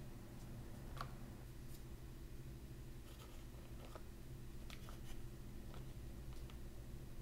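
Faint, scattered light clicks and rustles of chopsticks handling steamed buns on parchment paper in a bamboo steamer, over a low steady hum.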